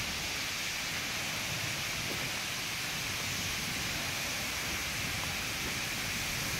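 Steady hiss of falling water: rain and a waterfall running down a rock face.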